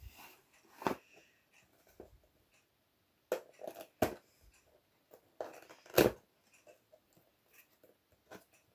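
A cardboard keyboard box being handled and its end flap pulled open: scraping and rustling with several sharp knocks, the loudest about six seconds in.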